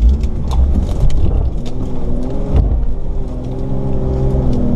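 Nissan Patrol's 2.8 diesel engine pulling at low revs as the 4x4 crawls over a rocky forest track, heard from inside the cabin. Its pitch rises and falls with the throttle, and a few sharp knocks and clunks come through as it goes over the rocks.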